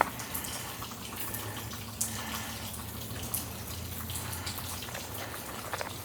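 A thin trickle of water running and dripping over a rock outcrop, with a few sharp drip ticks. It is a small waterfall reduced to a trickle for lack of rain.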